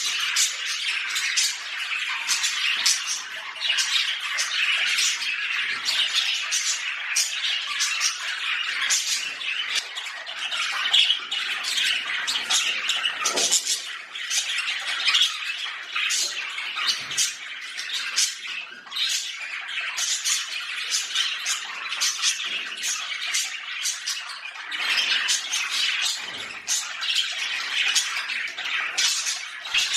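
Budgerigars chattering and squawking: a dense, unbroken stream of overlapping short chirps and calls.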